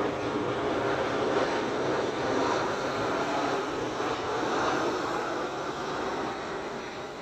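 Boeing 737 twin-jet airliner passing low overhead, its engines making a steady rushing jet noise that begins to fade in the last couple of seconds as it moves away.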